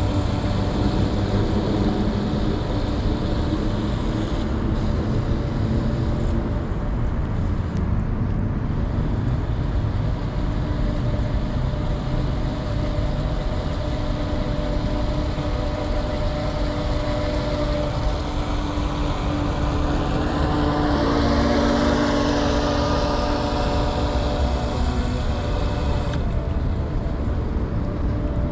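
Electric motor whine of a Heng Long Atlantic radio-controlled yacht running on the water, its pitch shifting with the throttle and loudest about twenty seconds in, over a steady low rumble.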